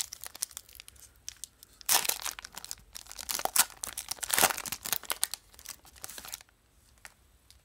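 Plastic wrapper of a football trading-card pack being torn open and crinkled by hand, with the loudest rips about two seconds in and around three to four and a half seconds in; the crinkling stops about six and a half seconds in.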